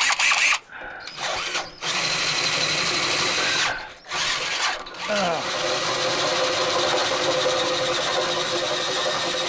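Cordless drill boring a 5/8-inch hole upward through a truck's transmission cross member. The drill starts and stops a few times, then runs steadily from about five seconds in.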